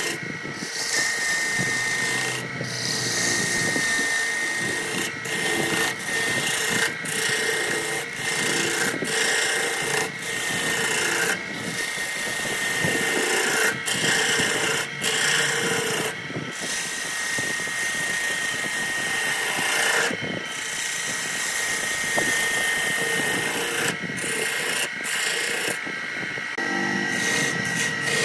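A hand turning tool cutting into a wooden blank spinning on a wood lathe: a continuous scraping, rasping hiss as shavings peel off. The hiss breaks off for a moment about a dozen times as the tool leaves the wood. A steady high whine runs underneath.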